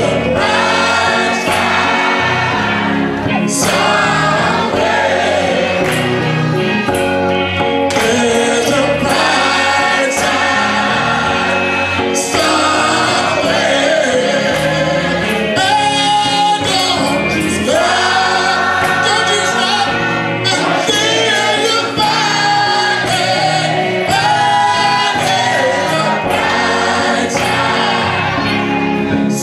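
Gospel choir singing with a man and a woman leading on microphones, over a steady beat from the accompaniment.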